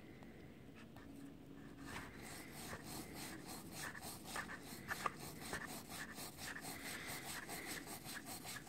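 Plastic-bristled brush scrubbing a rusty axe head submerged in apple cider vinegar: a faint, rapid, rhythmic scratching that starts about two seconds in, as the vinegar-loosened rust comes off.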